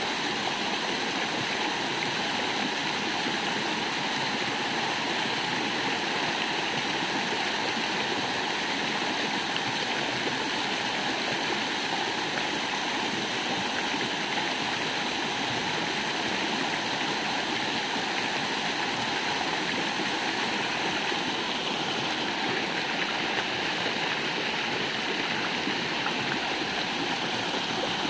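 A small waterfall in a rocky stream, water rushing steadily over boulders close by.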